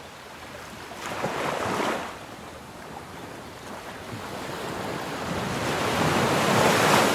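Small waves breaking and washing up a sandy beach: one surge about a second in, then a longer one building to its loudest near the end.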